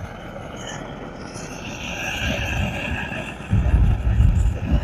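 Butane canister gas torch burning with a steady hiss while heating a slab of plaster. Wind buffets the microphone with a low rumble for about a second near the end.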